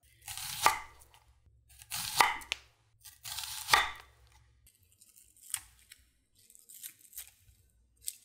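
A chef's knife slicing through a whole onion on a wooden cutting board: three slow strokes, each a crisp crunch ending in a knock of the blade on the board. After them come a few fainter crackles as the thin slices are pulled apart into rings.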